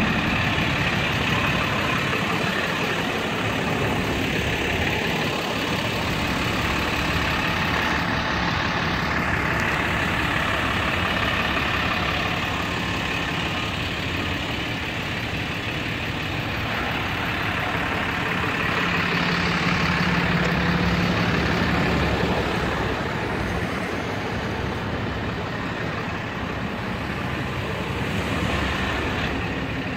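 Road traffic heard while moving on a city street: steady engine and tyre noise from trucks and cars, with a low engine hum for a couple of seconds about two-thirds of the way through.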